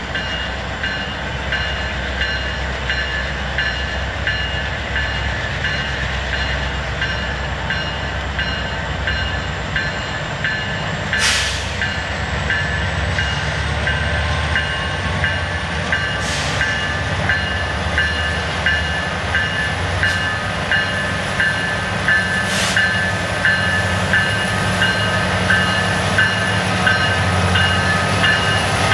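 Union Pacific diesel locomotives running and moving slowly past, with a steady low engine rumble and a bell ringing at about two strokes a second. It grows louder near the end as the engines come close.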